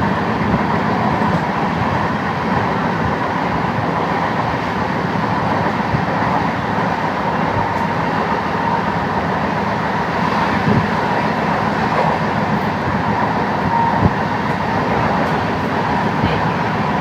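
A moving vehicle running steadily: a continuous low rumble with a faint steady whine and a few brief knocks.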